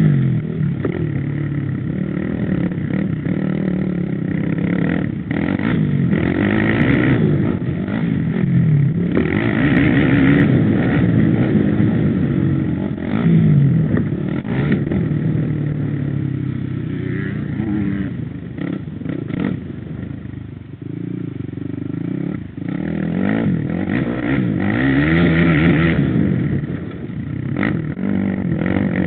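Suzuki quad (ATV) engine being ridden hard, its pitch rising and falling over and over as the throttle is worked.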